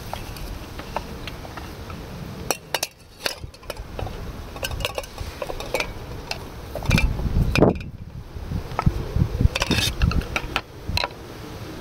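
A knife clicking and scraping on a wooden chopping board resting on a wire rack, as chopped sausage is scraped off the board into an enamel bowl. Scattered light clinks and knocks, the loudest about seven to eight seconds in.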